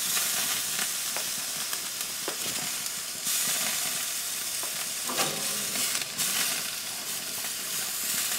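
Center-cut pork chops sizzling on a hot grill as their edges are charred, a steady hiss broken by a few light knocks.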